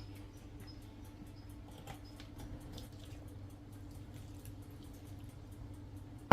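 A steady low hum with faint, evenly spaced light ticks early on and a few soft clicks, then one sharp knock at the very end.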